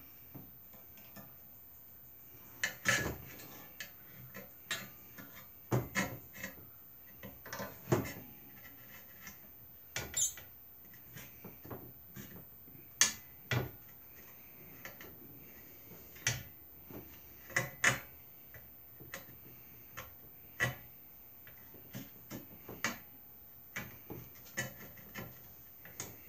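Irregular sharp clicks and knocks of metal hardware being handled and fitted to an Agri-Fab lawn cart's plastic tub, one every second or so.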